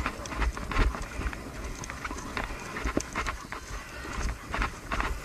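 Footsteps on a stony dirt track, uneven and a few each second, over a steady low rumble.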